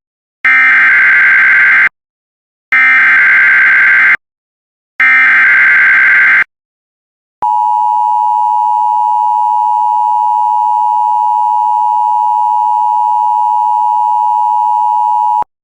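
Emergency Alert System SAME header: three identical bursts of shrill digital data tones, each about a second and a half long with short gaps. Then the EAS two-tone attention signal, a steady dual tone held for about eight seconds that stops abruptly. Together they announce an incoming emergency alert, here a severe thunderstorm warning.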